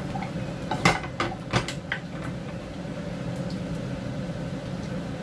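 Wooden spatula stirring pan-roasting cashew nuts in a nonstick frying pan: a quick cluster of knocks and scrapes against the pan in the first two seconds, then quieter.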